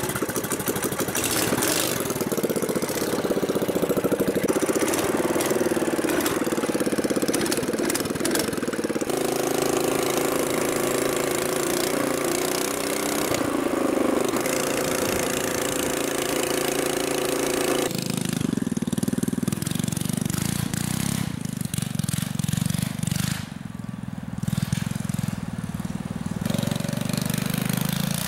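Coleman B200R mini bike's small single-cylinder four-stroke engine, fitted with a header pipe, running and revving as the bike is ridden, its pitch rising and falling. The sound changes abruptly about 9 and 18 seconds in.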